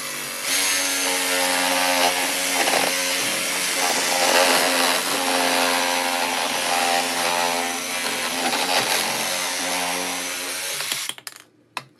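Cordless reciprocating saw cutting through white PVC pipe: a steady motor whine under the rasp of the blade in the plastic, stopping suddenly about a second before the end, followed by a few light knocks.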